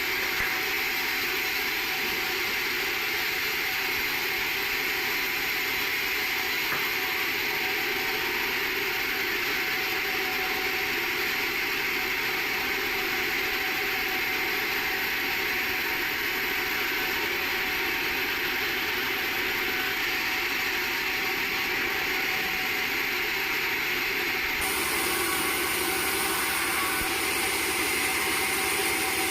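Sawmill machinery running with a steady, continuous mechanical noise. Its tone shifts slightly near the end.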